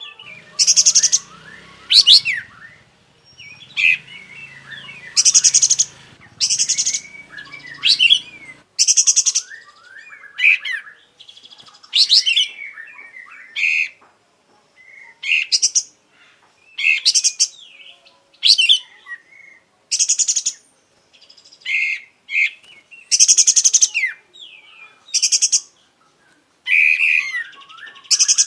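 A kapas tembak songbird singing continuously in quick repeated phrases, one every second or two. Loud buzzy high notes alternate with lower whistled chirps and glides, a full, varied song of the kind kept birds are trained on.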